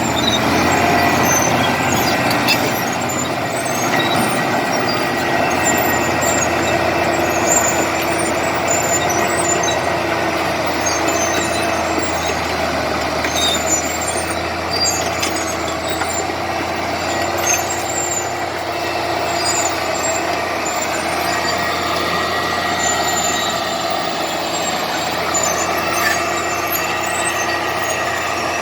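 Komatsu D70LE crawler bulldozer's diesel engine running steadily under load as it works clay, with scattered small clicks and squeaks over the engine note.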